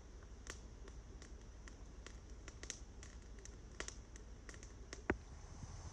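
Wood campfire crackling, with small irregular snaps and one louder pop about five seconds in.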